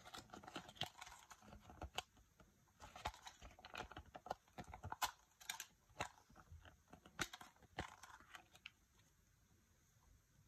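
Thin folded paper instruction leaflet from a Kinder Joy egg being unfolded and smoothed flat by hand: crinkling and rustling of paper with many small sharp crackles, stopping about nine seconds in.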